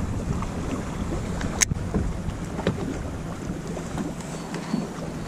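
Wind buffeting the microphone over water sounds around a small fishing boat, with a single sharp click about a second and a half in.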